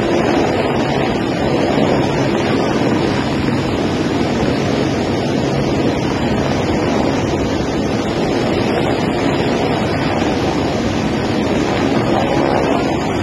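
Light helicopter hovering low, its rotor and turbine running steadily, mixed with the rush of floodwater and rotor wash buffeting the microphone.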